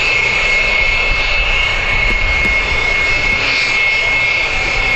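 F-16 fighter jets taxiing past at low power, one after another: the Pratt & Whitney F100 turbofans give a steady, high-pitched whine over a rushing hiss.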